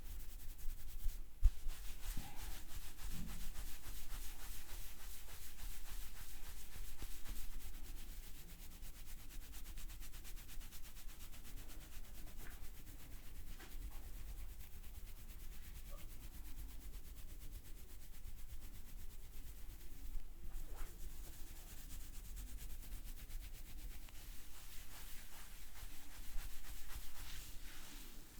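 Hands rubbing briskly over hair and scalp in a head massage: a rapid, scratchy rubbing, louder for the first several seconds, then softer.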